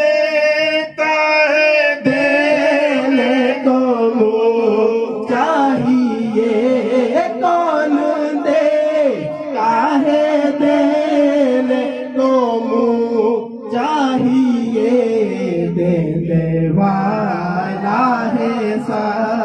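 A man singing a naat unaccompanied, drawing out long, wavering, ornamented notes with short breaths between phrases.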